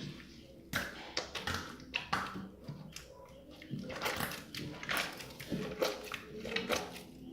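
Slime being squished and stirred with a little water to soften it, giving irregular wet clicks and pops, several a second.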